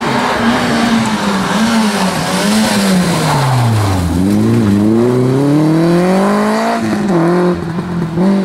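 Citroën Saxo rally car's four-cylinder engine passing close at speed. The engine note falls as the car slows for the bend about four seconds in, then climbs steadily under acceleration, dropping at a gear change near seven seconds before holding.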